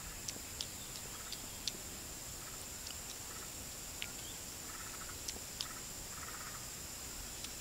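Tropical rainforest ambience: a steady high-pitched insect drone, with scattered sharp ticks and a few short chirps.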